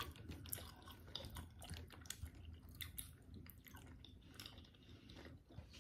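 Faint chewing of Fini gummy candy: soft, irregular clicks and smacks of mouths working on a firm, chewy sweet.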